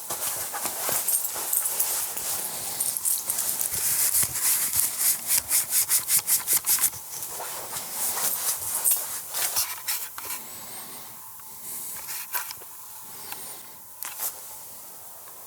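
Close rustling and scraping. In the middle comes a quick run of even scratching strokes, about four a second, for a couple of seconds, followed by quieter scattered rustles.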